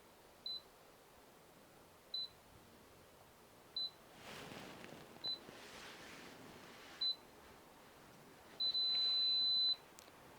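Keypad beeper of a Teeho fingerprint keyless deadbolt. It gives short high beeps about every one and a half seconds, one for each successful fingerprint scan. Near the end a long beep signals that the fingerprint has been enrolled.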